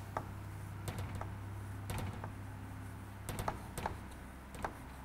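Chalk tapping and scratching on a blackboard while a word is written by hand, in short irregular strokes with small gaps between them.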